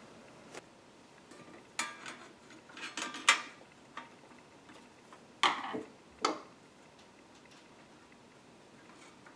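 Scattered light clicks and metallic clinks as a 2.5-inch SATA SSD is handled and fitted flat into a sheet-metal drive bracket, with the strongest knocks about three and five and a half seconds in.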